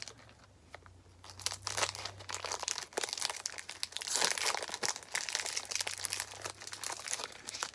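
Snack bar wrapper crinkling as it is worked open by hand, in a run of sharp crackles that starts about a second in.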